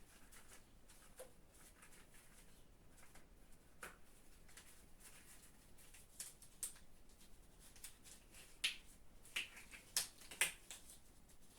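Faint rustling and small clicks of cloth and objects being handled, with several sharper rustles in the second half.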